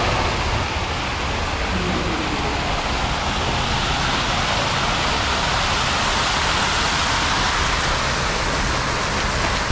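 A small artificial waterfall pouring over a rock cascade into a pond, making a steady rush of water with no let-up.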